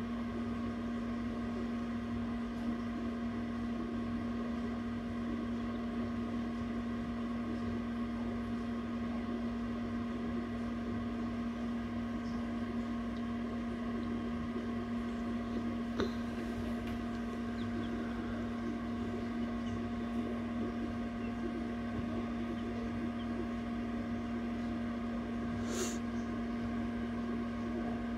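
Egg incubator running with a steady low hum and a few fainter higher whining tones. A faint click comes about halfway through and a short sharp tick near the end.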